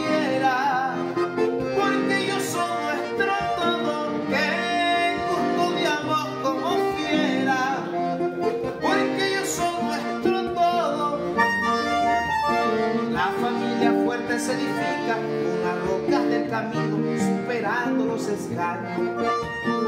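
Accordion and acoustic guitar playing a vallenato, with a man singing over them.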